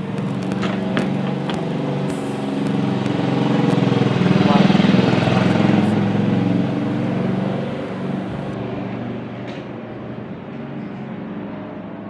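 A motor vehicle's engine running steadily, swelling to its loudest about five seconds in and then fading.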